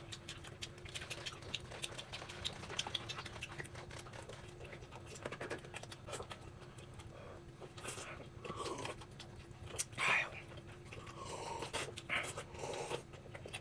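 Quiet eating sounds: chewing and breathing with scattered small clicks of tableware, over a faint steady hum.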